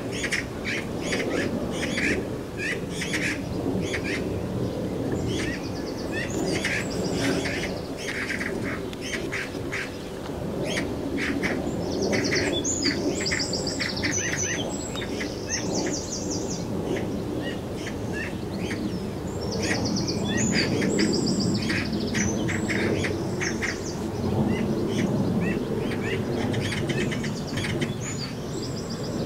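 Eurasian magpies squabbling at their nest, giving harsh, rapidly repeated rattling chatter calls over and over, over a steady low background noise.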